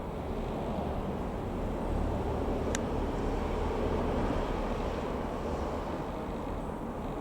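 Distant light aircraft engine droning, swelling slightly and then easing off. A brief tick about three seconds in.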